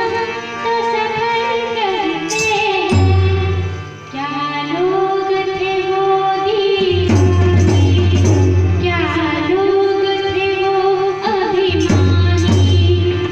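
A girl singing a melodic song with ornamented, gliding phrases, over instrumental accompaniment with a steady low bass note.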